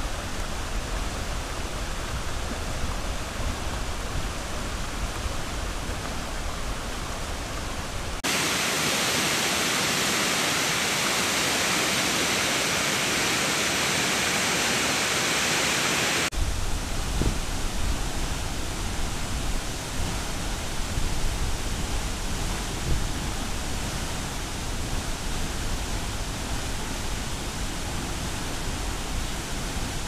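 Steady rushing of water from a tropical waterfall and the boulder-strewn river below it. About eight seconds in the sound turns abruptly brighter and hissier, and about eight seconds later it switches back to the lower, rumblier rush.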